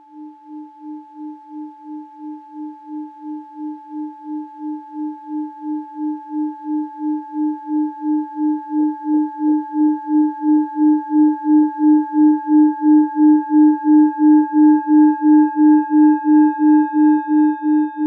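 Singing bowl rubbed around its rim, giving a sustained ringing tone with a pulsing wobble about three times a second that grows steadily louder.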